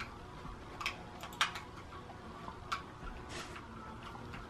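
A few faint clicks and taps of a plastic wireless mouse being handled, with a short rustle near the end.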